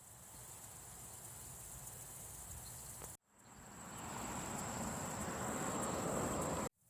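Outdoor ambience with a steady high insect trill, crickets, heard in two short takes joined by abrupt cuts. Each take fades up from silence into an even hiss.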